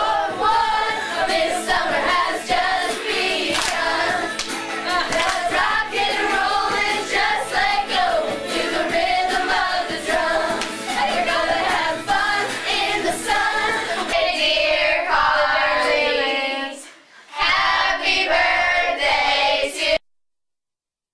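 Music with a group of girls' voices singing together. The singing drops out briefly about three-quarters of the way through, comes back, then cuts off to silence near the end.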